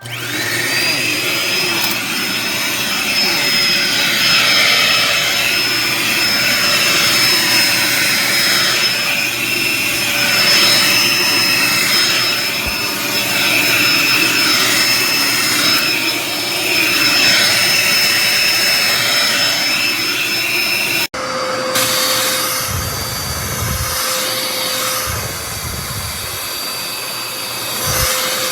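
Dirt Devil Endura Reach bagless upright vacuum cleaner running, its motor whine rising as it spins up at the start and then holding steady. The sound swells and eases every few seconds, and breaks off briefly near the end before carrying on with a few low thumps.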